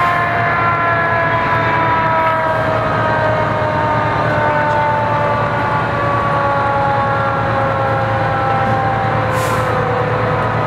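A fire engine's mechanical siren winding down, its wail falling slowly and steadily in pitch, over the steady hum of idling fire engines. Two short hisses of air come near the end.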